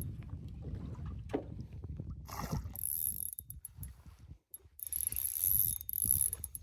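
Fishing reel being cranked, a fast mechanical ratcheting whir that stops briefly about four seconds in, then resumes.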